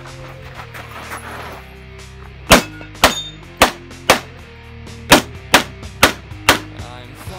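Eight pistol shots from an STI Edge in .40 S&W, fired from the prone position in quick succession about half a second apart, over background music.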